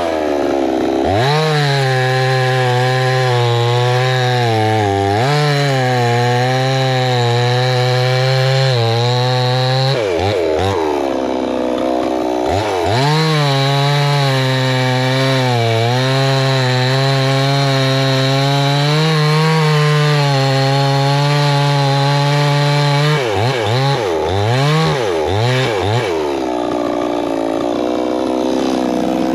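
Wemars gas chainsaw's two-stroke engine running at high revs as it cuts wood, falling back to idle about ten seconds in and then climbing again. Near the end come a few quick throttle blips before it settles to idle.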